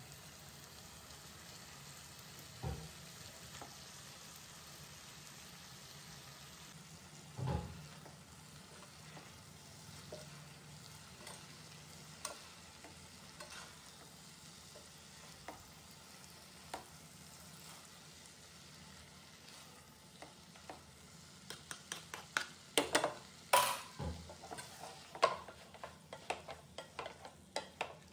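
Spaghetti, chicken and vegetables sizzling faintly in a non-stick pan, with a few single knocks. From about twenty seconds in, a spatula tosses the noodles, scraping and clattering quickly against the pan.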